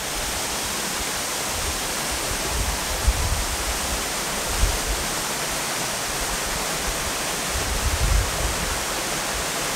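Steady rushing of a tall waterfall, water pouring down a rock face onto rocks, with a few brief low rumbles on the microphone.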